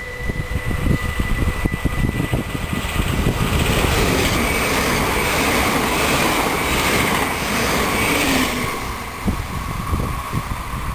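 Dutch NS double-deck electric passenger train passing close by at speed: the rumble and hiss of its wheels on the rails build within the first second, hold for about eight seconds, and ease off near the end as the train moves away.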